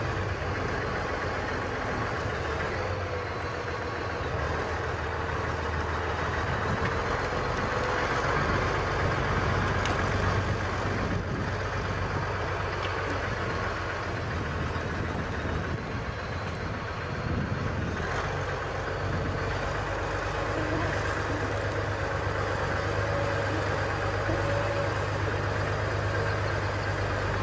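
Truck engine running steadily with a constant low hum, without revving up or down.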